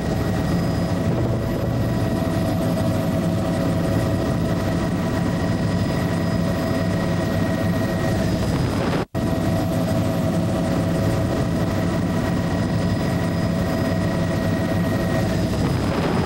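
Steady engine and rotor drone of a survey aircraft heard from inside the cabin, with a constant hum of steady tones over a low rumble. The sound cuts out for an instant about nine seconds in.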